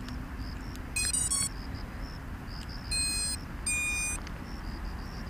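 Diatone GT-M515 racing quadcopter's ESCs beeping through its brushless motors as the battery is connected: a quick run of short electronic tones about a second in, then two longer beeps. These are the power-up tones of the speed controllers.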